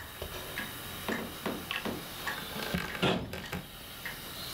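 Wooden sliding hatch being worked along its brass runner: a run of irregular wooden knocks and clicks, a few to a second, over a steady hiss.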